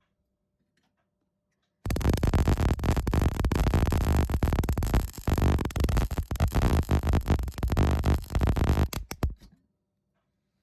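MIG welder arc crackling and buzzing in one weld run of about seven seconds. It starts about two seconds in and ends in a few short sputtering bursts. The run burns through the metal, which the welder puts down to too much heat.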